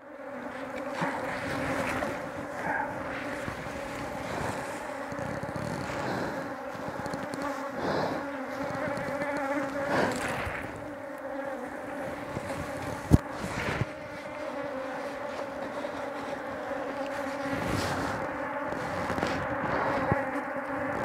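Honey bees buzzing in numbers around an opened hive, a steady droning hum. A single sharp knock about thirteen seconds in.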